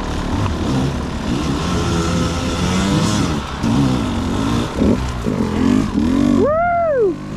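Dirt bike engine running under constantly changing throttle over rough ground, its pitch rising and falling every second or so. Near the end it gives one quick rev that climbs and falls in pitch in under a second.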